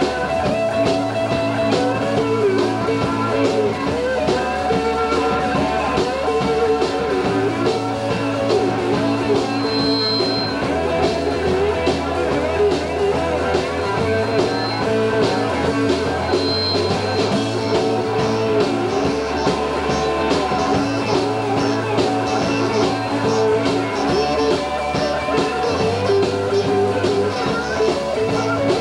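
Live rock'n'roll blues band playing an instrumental passage: electric guitars, bass and drums, with a saxophone at the front. The bass line moves in steps every couple of seconds under a wavering lead melody.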